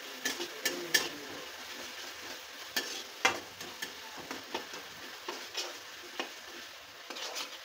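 Metal spatula scraping and clinking against a metal kadai as chicken curry masala is stirred, in irregular strokes over a steady sizzle of frying oil.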